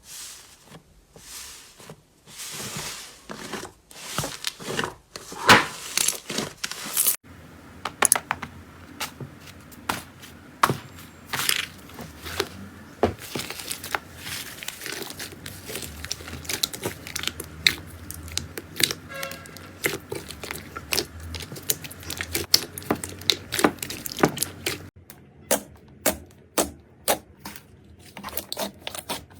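Slime being squeezed, stretched and poked, with sticky crackling and popping. The sound changes abruptly about seven seconds in to dense crackles over a low hum, and again near the end to a run of sharp, crisp clicks.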